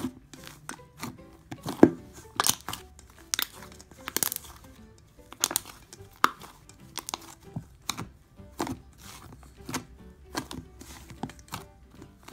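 Fluffy shaving-cream slime being kneaded and stretched by hand, giving a run of irregular sticky clicks and pops, over quiet background music.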